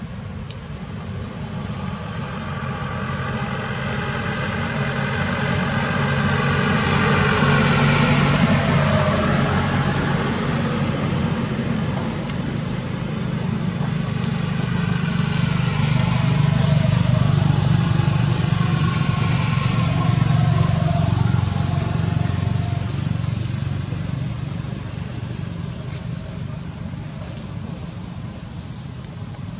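Motor vehicle engines passing close by. The sound swells to its loudest about eight seconds in and again from about sixteen to twenty-one seconds in, falling in pitch as each goes by, then fades. A steady thin high whine runs underneath throughout.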